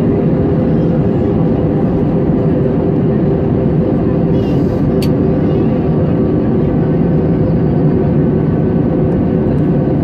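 Steady drone of a jet airliner heard from inside the cabin: a dense, even low rumble with a steady hum. A single sharp click comes about halfway through.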